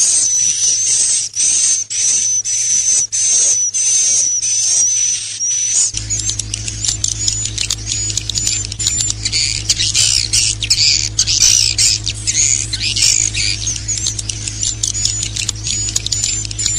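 Songbird singing: for about six seconds a high, thin whistled note repeated about twice a second, then a fast, varied chattering warble. A steady low hum runs under the song from about six seconds in.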